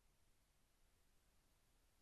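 Near silence: only faint, steady background hiss.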